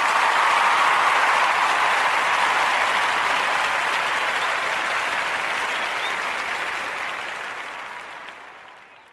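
Crowd applauding: dense, steady clapping that fades out near the end.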